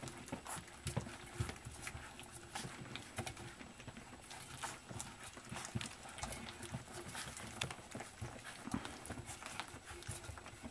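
A litter of puppies eating together from a stainless steel saucer feeding pan: busy, irregular lapping, chewing and smacking, mixed with clicks and light knocks against the metal pan.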